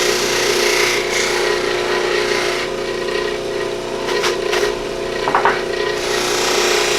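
Motor-driven buffing wheel running with a steady hum while a deer antler piece is pressed against the compound-loaded wheel, making a rubbing, hissing sound. The rubbing eases off for a few seconds midway, with a couple of light knocks and a brief scrape, then resumes.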